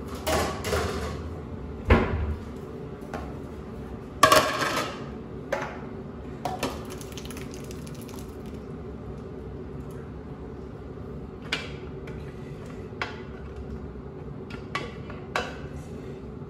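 Thermomix stainless steel mixing bowl clanking against a ceramic bowl as cooked mince is tipped out of it: a sharp knock about two seconds in, a louder ringing clank about four seconds in, then lighter taps.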